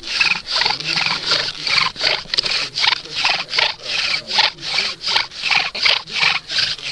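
Bow drill fire-making: a wooden spindle grinding and squeaking in its hearth board with each stroke of the bow, about three strokes a second, as it is driven to form an ember.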